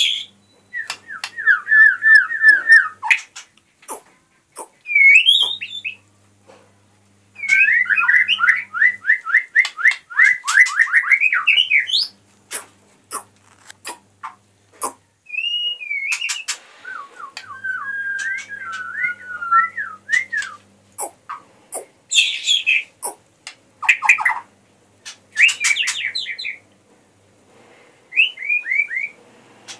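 White-rumped shama singing: phrases of fast repeated slurred whistled notes and higher single whistles, broken by short pauses, with sharp clicks scattered between the phrases.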